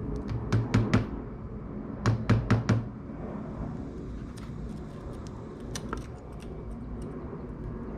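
Light hammer taps driving a small metal pick into a check valve in a Kärcher pressure washer pump head to pry it out: a quick run of about five taps, another run of four about two seconds in, then a few scattered single taps.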